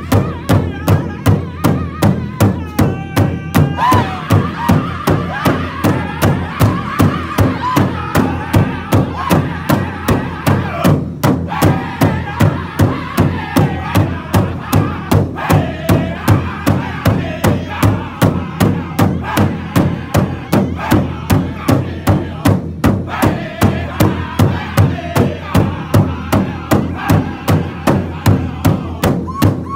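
Powwow drum group: several men beating a large rawhide powwow drum in unison with drumsticks, a steady even beat, while they sing loudly together over it in high, strained voices in the powwow style.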